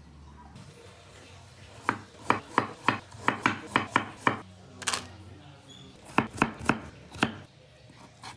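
Kitchen knife chopping carrot and potato on a wooden cutting board. Starting about two seconds in, there is a run of about nine sharp chops, one more chop after a pause, then a quicker run of five chops.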